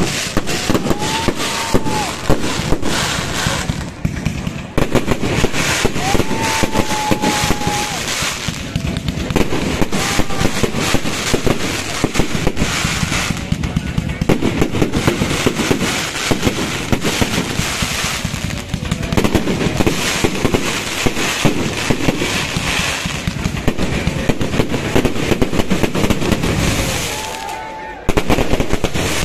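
Fireworks display: a continuous, dense barrage of bangs and crackling from aerial shells and firecrackers going off in rapid succession, with a brief lull near the end before it picks up again.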